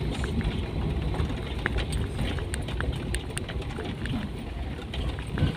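Toyota Kijang driving slowly over a potholed, broken road, heard from inside the cabin: a steady low engine and road rumble with frequent short clicks and rattles.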